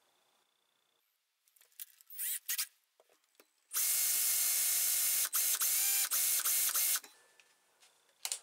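Cordless drill running for about three seconds while a file-sharpened twist bit cuts into a steel tube, with a few brief dips as the trigger is eased. Scattered handling clicks come before and after.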